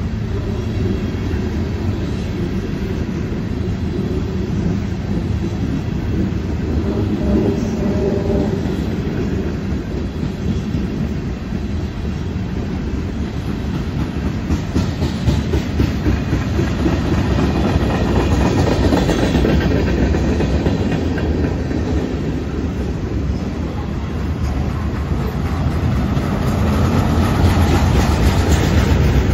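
Freight cars of a passing CN freight train, gondolas then tank cars, rolling by with a steady rumble and the clickety-clack of their wheels on the rails. It grows louder near the end as the tank cars pass close by.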